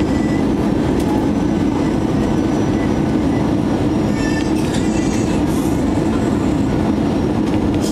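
Steady cabin noise of an Airbus A320-200 on approach, heard inside the cabin beside the wing: an even engine-and-airflow rumble with no change in level.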